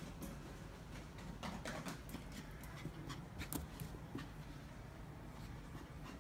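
A Maltese puppy's paws tapping as it runs and bounces: faint, irregular light clicks, most of them between about one and a half and three and a half seconds in.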